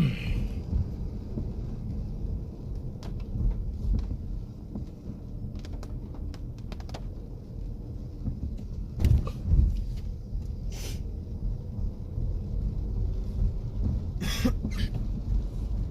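Steady road rumble inside a moving car, with a passenger coughing a few times, about nine seconds in and again near the end.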